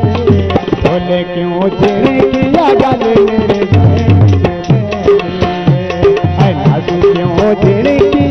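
Instrumental passage of a Saraiki folk song: tabla strokes, the low drum strokes sliding down in pitch, under a melody instrument playing an ornamented, bending tune.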